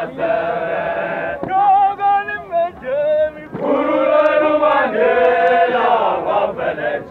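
A group of voices chanting and singing together in unison, with long held notes that bend in pitch; the singing swells louder in the second half.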